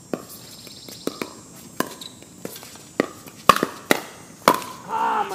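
Pickleball paddles striking a plastic ball in a fast rally of volleys, a string of sharp pops that come closer together and louder over the last couple of seconds. A voice is heard briefly near the end.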